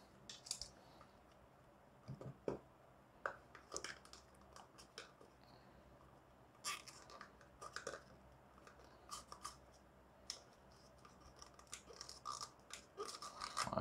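Faint, irregular scrapes, taps and rustles of fingers working inside a small cardboard box, prying out a tight-fitting paper manual.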